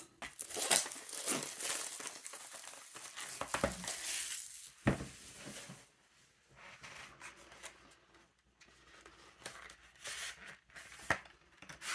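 Packaging crinkling and tearing as art supplies are unwrapped, dense for about six seconds, then quieter scattered clicks and scratches.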